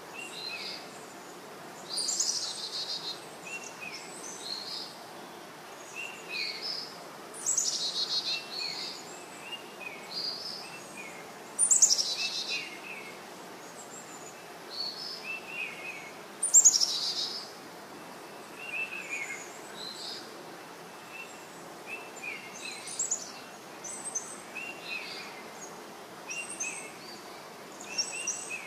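Birds calling in the open air: a loud, high call sweeping downward comes four times, every four to five seconds, with shorter chirps from other birds in between and through the second half, over a steady outdoor hiss.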